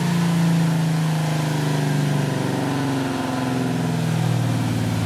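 1995 Camaro Z28's LT1 V8 on a chassis dyno, breathing through long-tube headers and a 3-inch Borla cat-back exhaust, winding down after a pull: its note falls steadily in pitch and settles to a lower, steady note about four seconds in.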